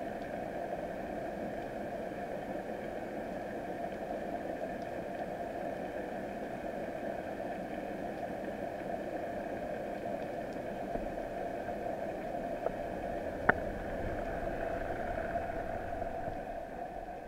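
Underwater ambience: a steady hiss and rush of water around the camera, with a single sharp click about thirteen seconds in.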